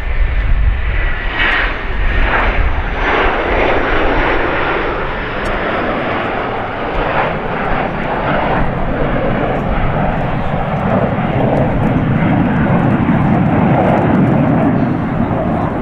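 Jet engines of a formation of fighter jets flying past, a loud steady rush of engine noise with a thin high whistle slowly falling in pitch over the first few seconds, turning to a deeper rumble later on.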